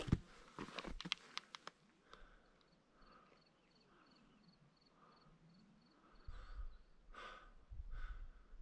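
Footsteps and knocks over loose lava rock in the first couple of seconds, then near quiet, then a few breaths toward the end.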